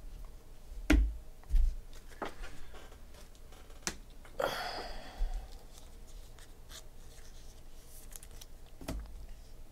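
Baseball trading cards and packs being handled on a tabletop: scattered light taps and knocks, and a short ripping rustle about four and a half seconds in.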